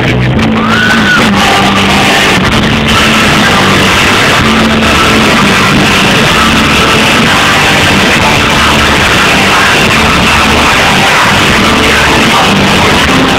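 Folk-metal band playing live, loud, heard from the audience: electric guitars with the band's full stage sound.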